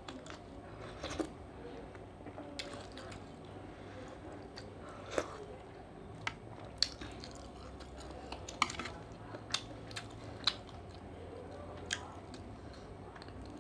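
Close-miked eating of seafood fried rice: chewing with a dozen or so sharp, irregular mouth smacks and clicks.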